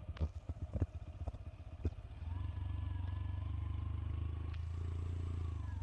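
Motorcycle engine running at a steady speed, coming in about two seconds in after a few light clicks and knocks, with a faint whine above its hum.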